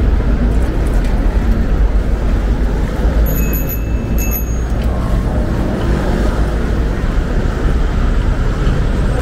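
City street traffic noise: a steady rumble of passing cars and buses. About three seconds in, a short high electronic beep sounds twice in quick succession.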